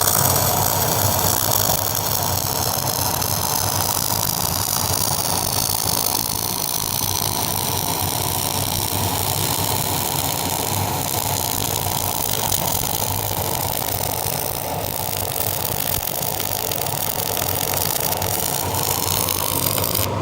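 Flux-cored wire welding arc laying a bead on 316L stainless steel pipe: a steady crackling hiss that cuts off abruptly near the end.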